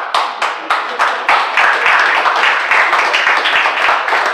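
A small crowd applauding: many hands clapping, breaking out suddenly and going on steadily.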